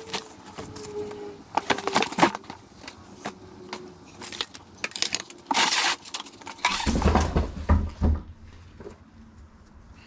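Metal bike rack parts and hardware clinking and clattering as they are handled and moved, with plastic packaging and cardboard rustling. A loud rustle comes a little past halfway, followed by a few dull thumps.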